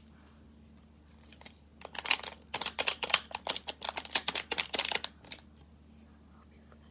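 Rapid crinkling and crackling of a small plastic glitter sachet being handled, from about two seconds in until about five seconds in.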